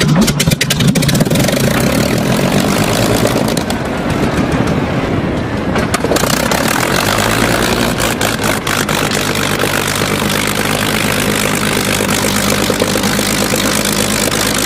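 P-51 Mustang's Merlin V12 aero-engine just after start-up, firing with a rapid crackle of pops for about the first second, then running steadily with scattered pops as it idles.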